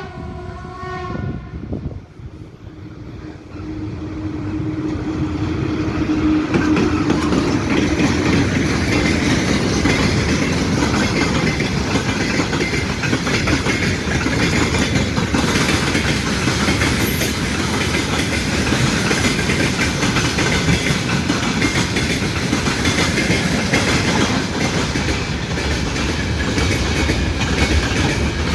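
A train horn sounds and cuts off about a second in; then a train approaches, growing louder over several seconds, and runs past with a steady rumble and clickety-clack of wheels on the rail joints.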